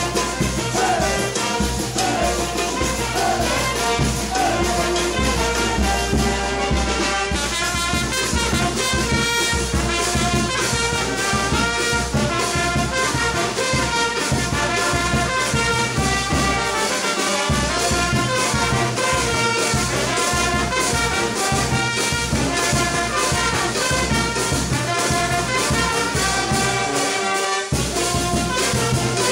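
Brass band (Peruvian banda) playing live: trumpets and saxophones carrying the melody over a sousaphone, bass drum and drums.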